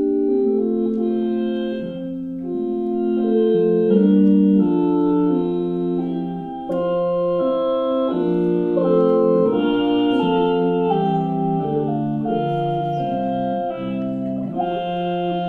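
Four-part laptop vocal synthesis, with synthetic voices shaped by performers' hands, playing a Renaissance choral anthem as steady held notes that move together in block chords.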